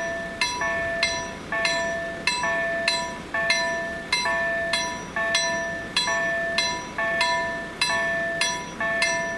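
Level-crossing warning bell ringing, a two-note electronic chime repeating about twice a second with each note ringing out. It is the crossing's warning that a train is approaching.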